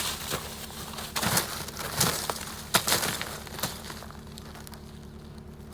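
Crusted snow crunching and breaking as it is dug and scraped off the top of a haylage ag bag, a string of irregular crunches over the first four seconds and quieter after, over a steady low hum.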